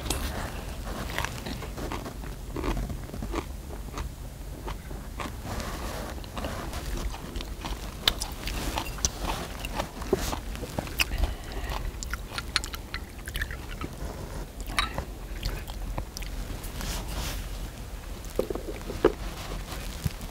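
Close-up chewing and crunching of a mouthful of lettuce wrapped around spicy stir-fried pork, with short sharp crunches and clicks scattered throughout.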